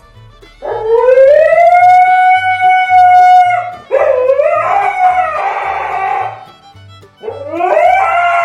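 Husky howling three times: a long howl that rises and then holds steady, a rougher second howl, and a third rising howl that begins near the end. Background music with a steady, repeating bass line plays underneath.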